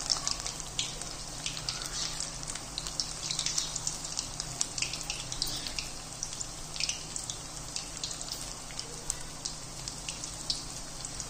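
Matar bondas, balls of green-pea batter, deep-frying in hot oil in a steel kadai: a steady sizzle with many small, irregular crackles and pops.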